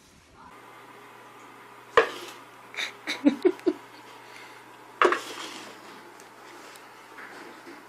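A plastic cup stuck over a cat's head knocking and clattering against a wooden floor: two sharp knocks, about two and five seconds in, with a quick run of smaller clatters between them.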